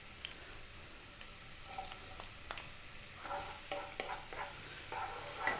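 Chopped garlic and ginger strips sizzling quietly in hot oil in a small wok. A wooden spoon clicks against the pan, and from about halfway it scrapes as the garlic is stirred through.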